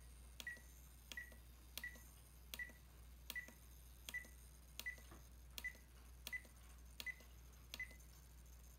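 Radio-control transmitter trim switch clicked step by step, each click followed by a short high beep, eleven times at an even pace of about one every 0.7 seconds, stopping shortly before the end. Each press moves the servo's trim one extra-fine step; about twelve steps make one degree.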